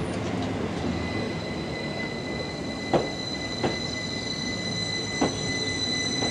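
Electric multiple unit running slowly along the platform: a steady rumble with a few sharp knocks as wheels cross rail joints, and from about a second in a steady high-pitched wheel squeal.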